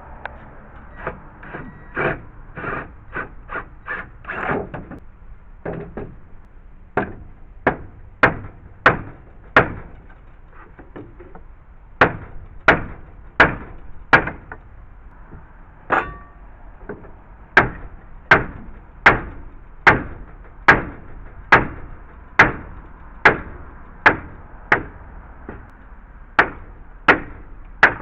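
A hammer striking wood over and over, in runs of about one to two blows a second, with lighter blows in the first few seconds and harder ones after that.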